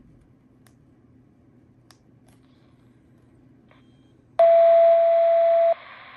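ICOM IC-R30 handheld receiver powering up: a few faint clicks, then about four seconds in a steady beep lasting just over a second from its speaker, over a hiss that carries on after the beep stops.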